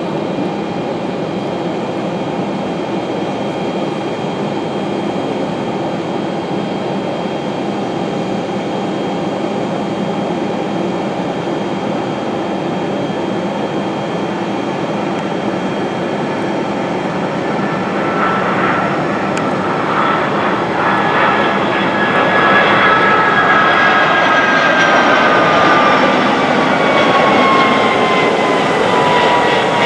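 Airbus A300-600R airliner on final approach, its twin jet engines making a steady rumble that grows louder about two-thirds of the way through. Near the end an engine whine slides down in pitch as the jet passes close by.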